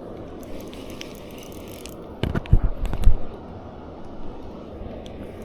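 A quick cluster of loud knocks and thumps a little over two seconds in, lasting about a second, over a steady background hiss.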